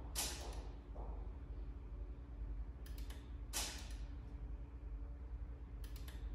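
Mechanical clicks during an RCD auto test by a Fluke 1664FC multifunction tester: a sharp click and then a louder snap with a short hiss, about every three seconds, over a low steady hum.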